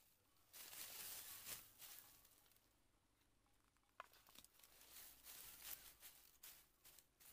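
Faint scraping and rustling of dry bamboo leaves and soil as the ground is cleared by hand and machete, with a single sharp click about four seconds in as the machete goes into its wooden sheath.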